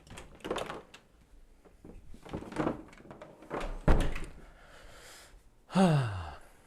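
Knocks and thuds of things being handled, the loudest a sharp knock about four seconds in, followed near the end by a scraping sound that slides down in pitch.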